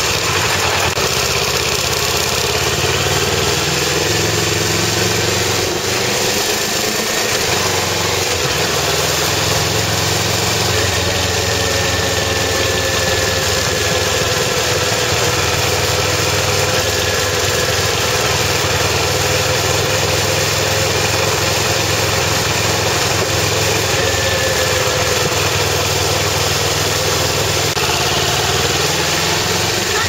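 Motorcycle engine running while riding at road speed, its pitch drifting gently up and down, under steady wind and road noise on the handlebar-mounted camera.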